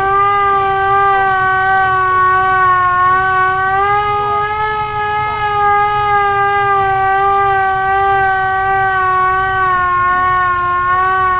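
Hand-cranked Chinese WWII-era air raid siren wailing at a high, nearly steady pitch that wavers slowly up and down, sounding the attack signal.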